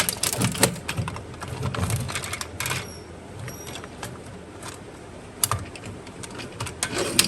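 Irregular light clicks and taps of hard plastic, thickest in the first few seconds with a couple of sharper clicks near the end, as the parts of a plastic RC robot car toy are handled.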